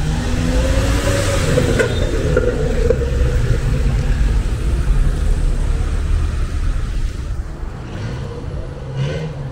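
Street traffic: a motor vehicle passes close by, its engine note rising over the first couple of seconds, over a steady low rumble of traffic.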